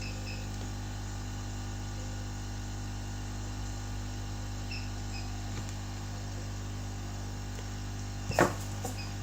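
Steady low hum of background noise with a few faint ticks, broken about eight seconds in by one brief, sharp knock.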